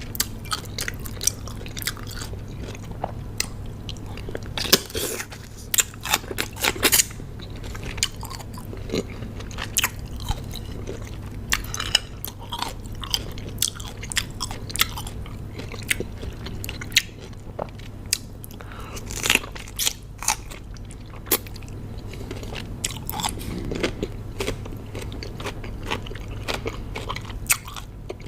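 Close-miked biting and chewing of crunchy raw cucumber, a dense, irregular run of sharp crunches, over a steady low hum.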